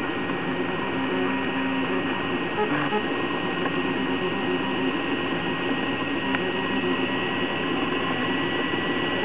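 Prusa i3 3D printer printing: its stepper motors whine in tones that shift in pitch as the moves change, over a steady hum of motors and fans.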